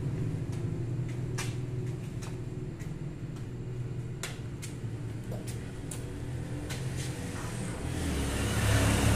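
A steady low engine-like rumble that swells louder near the end, with scattered light clicks and taps from hands working on the metal frame.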